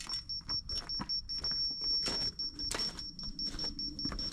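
Laser level receiver beeping rapidly in a high, steady pitch, switching briefly to a continuous tone about two seconds in, the signal that the paver is on grade, before going back to beeping. Clicks and scrapes of stone and gravel sound with it.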